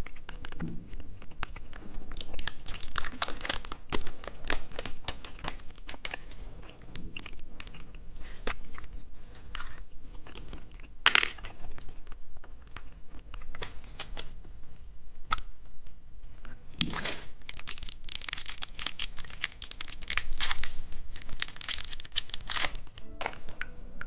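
Plastic candy wrapper being torn open and crinkled, a busy irregular crackling that is densest about two to four seconds in and again from about seventeen to twenty-two seconds.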